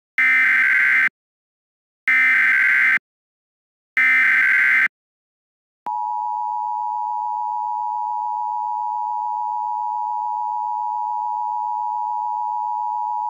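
Emergency Alert System SAME header: three bursts of digital data tones, each about a second long and about a second apart, encoding a dust storm warning. About six seconds in, the steady two-tone EAS attention signal begins and holds.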